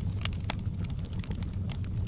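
Wood fire crackling: irregular sharp pops and snaps, two louder ones within the first second, over a steady low rumble of the burning fire.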